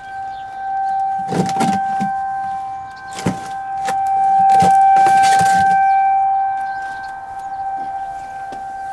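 Outdoor tornado warning siren sounding one steady tone, growing louder from about four seconds in and easing off again. A few sharp knocks and rattles come close by in the first half.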